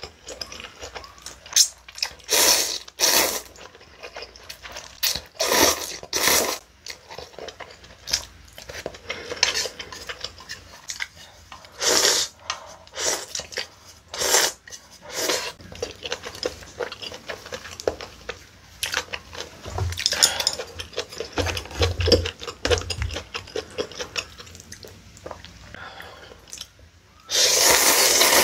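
Close-miked eating: cold buckwheat noodles slurped in loud bursts, with chewing and light clinks of a spoon and chopsticks between them. A long, loud slurp comes near the end.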